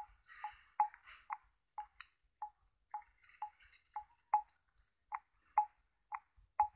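A steady series of sharp clicks, about two a second, as drawn strokes on a digital whiteboard are removed one at a time.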